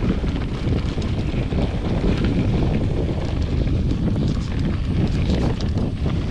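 Wind buffeting the microphone, a steady low rumble, with faint light clicks and rattles over it.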